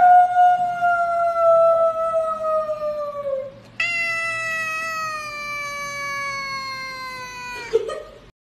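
A tabby cat giving two long, drawn-out meows, each held for three to four seconds and sinking slowly in pitch. The second starts a moment after the first ends and is brighter.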